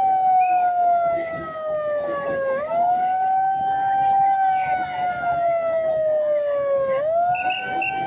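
Siren wailing: a tone that jumps up quickly, then sinks slowly, the cycle starting again about every four and a half seconds, twice within these seconds.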